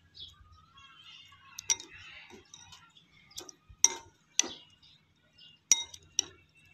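Metal spoon clinking against a glass bowl while stirring sliced fruit in a chili seasoning, about six sharp clinks at irregular intervals.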